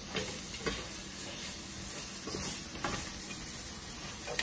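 Onions sizzling in a square copper-coloured pan while a plastic slotted spatula stirs them, with a few short scrapes of the spatula against the pan.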